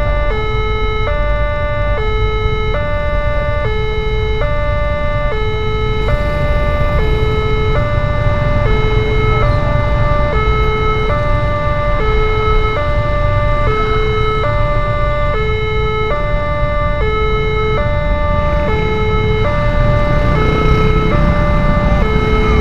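Railway level-crossing warning alarm sounding a steady two-tone electronic signal, high and low notes alternating about every half second. Under it runs the low, steady running of many motorcycle engines, a little louder near the end as they move over the crossing.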